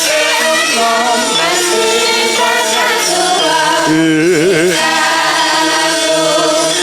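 Live Javanese campursari music: a singer holds long notes over the band, with a wavering, ornamented note about four seconds in.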